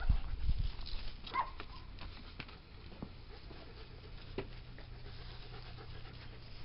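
Rough collie giving one short whimper about a second and a half in, then a few faint clicks and rustles as it noses through the grass.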